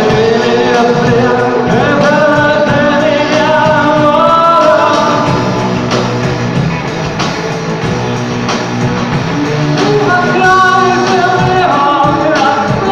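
Live shoegaze/noise-pop band performing: loud electric guitars with a sung vocal line that drops out in the middle and comes back near the end.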